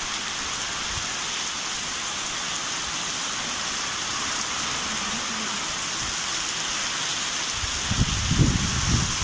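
Heavy rain pouring down steadily, an even hiss. Over the last second or so, low gusting rumbles come in and are the loudest part.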